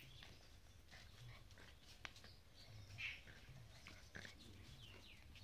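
Two puppies play-fighting, mostly quiet, with one short high-pitched yelp about three seconds in.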